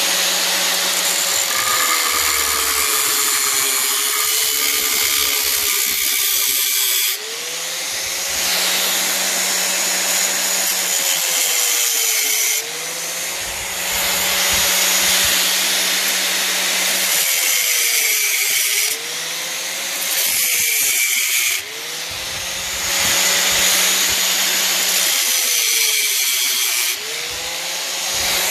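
Electric angle grinder with a cut-off wheel cutting through a rusted muffler and its exhaust pipe. The motor's whine sags in pitch each time the wheel bites into the metal and climbs back, with several short breaks between cutting passes.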